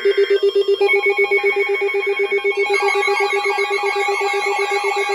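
Several emergency alert receivers sounding at once, signalling an incoming weather alert. A rapidly pulsing ringing tone is joined about a second in by steady higher tones, and near three seconds in by a warbling, rising-and-falling siren-like alert tone.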